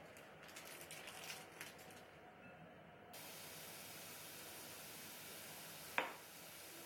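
Faint rustling and light clicks over a glass mixing bowl, then a steady hiss from about three seconds in. About six seconds in comes one sharp knock, a small glass measuring cup being set down on the countertop.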